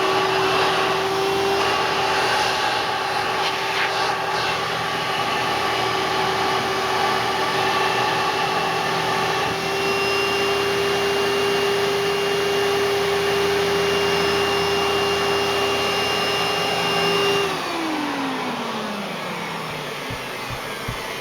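1997 Hoover Dimension Supreme direct-air upright vacuum cleaner running loud and steady with a constant motor whine. Near the end it is switched off and the motor winds down, its pitch falling away over a couple of seconds.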